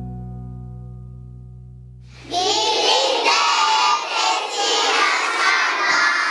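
A song's final held chord fades out over about two seconds. Then a large group of young children's voices calls out together, loud and lively, to the end.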